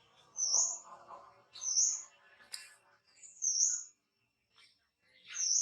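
Baby monkey giving short, high-pitched squeaky calls, four of them about a second and a half apart, each rising and falling in pitch.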